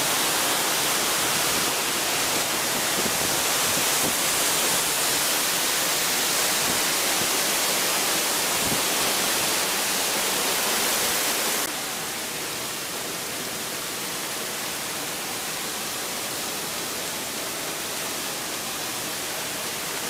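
Waterfall rushing as a steady wash of water noise, dropping a little in level and growing duller about twelve seconds in.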